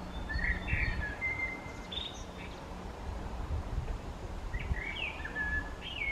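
Male common blackbird singing: two short phrases of fluting, whistled notes, one at the start and one about four and a half seconds in.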